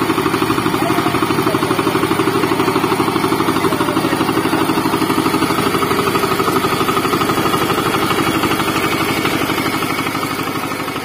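VST Shakti 130 DI power tiller's single-cylinder diesel engine running steadily with an even, rapid firing beat, growing a little fainter near the end.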